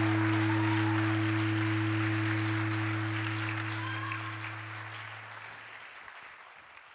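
Audience applauding over a low held musical note. The note stops about five seconds in, and the applause fades away by the end.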